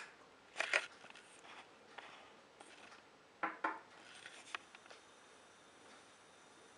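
Oil poured from a small ceramic bowl into a nonstick pot, with a few short soft knocks of the dish against the pot: once about half a second in and again about three and a half seconds in. Otherwise faint room tone.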